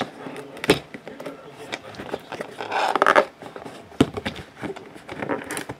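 Hands handling a cardboard trading-card box and working at its lid: scattered taps and scrapes, with sharp knocks near the start and about four seconds in.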